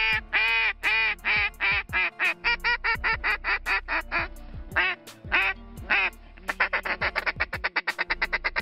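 Mallard duck call blown by a hunter imitating a hen mallard: a string of loud, drawn-out quacks, then shorter quacks. From about two seconds before the end it runs into a fast chatter of about six or seven short notes a second, the feed call.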